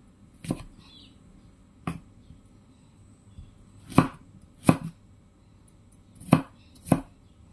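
Cleaver chopping green tomatoes on a wooden cutting board. There are six sharp knocks of the blade striking the wood, spaced irregularly, with the last four in two pairs.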